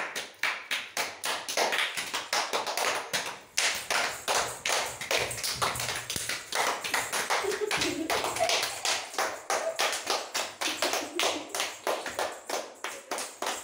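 Several people clapping their hands in a steady rhythm, about four to five claps a second.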